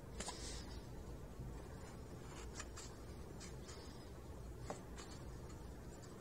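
Faint light taps and rustling as a wooden wing rib is handled and slotted onto a wooden spar lying on a paper plan, with a few scattered small clicks.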